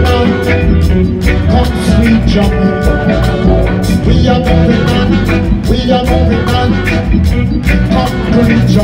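Live reggae band playing, with a steady drumbeat, bass, congas and horns.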